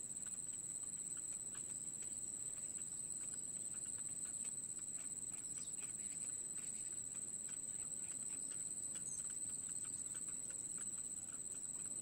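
Soft, irregular ticks and rustles, a few a second, from the chicks and nest material of a small bittern's grass nest. A constant high-pitched whine runs under them.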